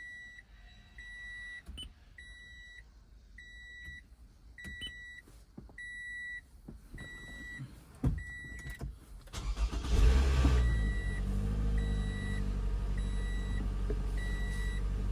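A 2012 Toyota Camry's warning chime beeping steadily, a short high beep about every 0.7 s. About nine seconds in, the engine cranks and starts, then settles into a steady idle while the chime keeps beeping.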